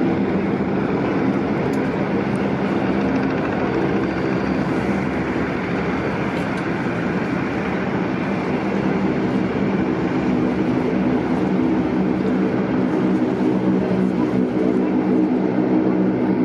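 Aircraft engine running steadily at close range, a loud even drone with several constant low tones.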